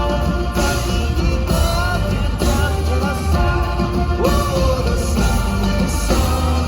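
A rock band playing a song live, with heavy bass and a melodic line that bends in pitch above it.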